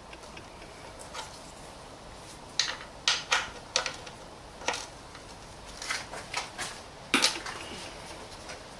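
Irregular metallic clicks and clinks of a 19mm wrench working the sump drain plug loose under the car, a few sharp knocks coming in two clusters.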